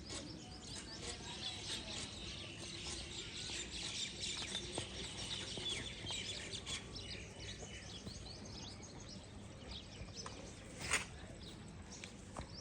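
Many small birds chirping and twittering together in a dense chorus, busiest in the first half, over a steady low background noise. One sharp, louder sound stands out near the end.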